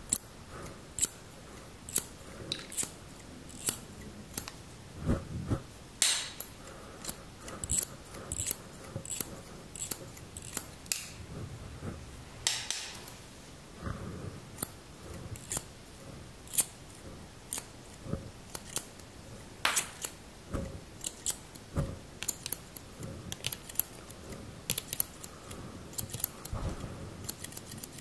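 Steel barber scissors snipping right at a microphone's furry windscreen: many short, crisp snips at an irregular, unhurried pace.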